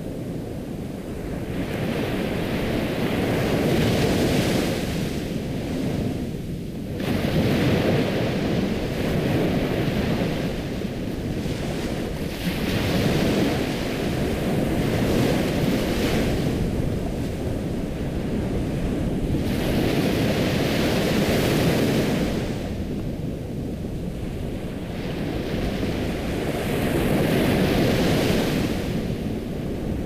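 Ocean waves breaking and washing on a shore, the surf swelling and fading every few seconds.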